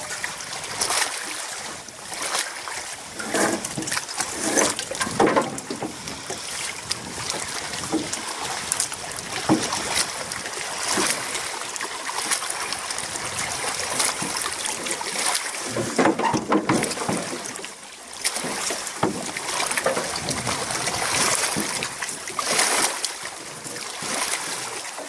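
Shallow water splashing and sloshing irregularly around hands and a rope at the bow of a metal boat, mixed with rustling handling noises of the rope and clothing.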